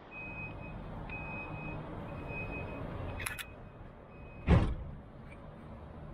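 Translohr rubber-tyred tram standing at a stop with a steady low hum, its door-closing warning sounding as a repeated high beep for about four seconds. The sliding doors then shut with a loud thump about four and a half seconds in.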